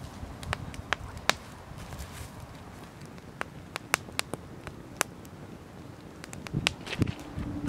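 Wood campfire burning under a covered pot, crackling with sharp, irregular pops of burning logs. A few duller low thumps come near the end.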